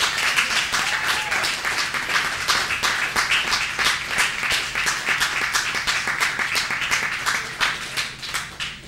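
Audience applauding, with a short cheer about a second in. The clapping thins out and fades near the end.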